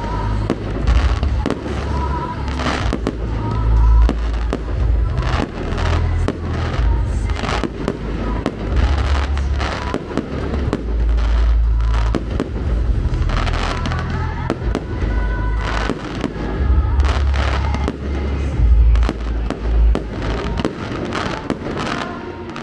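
Fireworks display: many sharp bangs and crackles of bursting shells, one after another, over deep booms.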